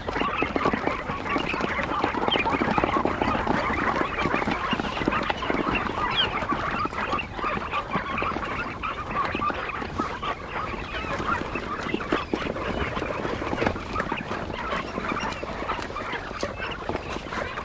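A flock of quail calling together: many short chirps and chatters overlapping in a continuous dense din.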